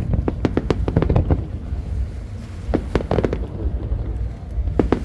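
Aerial fireworks bursting: a fast run of about ten sharp bangs in the first second and a half, then fewer, another quick cluster about three seconds in, over a constant deep rumble.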